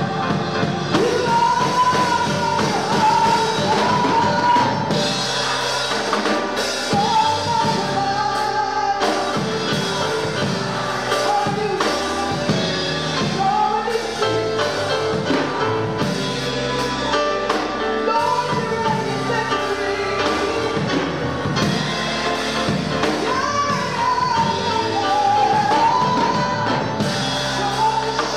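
Live gospel praise-and-worship music from a church band with keyboard, electric bass and drums, with a voice singing the melody.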